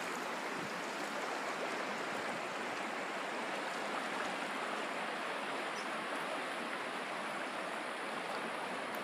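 Shallow river water running over rocks: a steady rushing.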